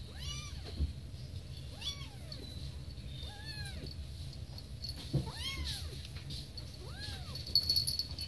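Kittens mewing: about five high-pitched mews, each rising and then falling in pitch, a second or two apart.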